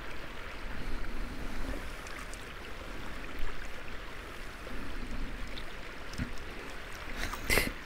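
A river in high flood flow rushing steadily, with a short louder noise near the end.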